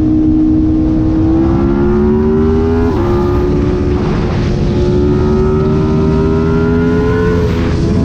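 Sport motorcycle engine and exhaust heard from onboard as the bike accelerates along the highway. The note climbs steadily and drops suddenly in pitch about three seconds in and again near the end, as it shifts up a gear.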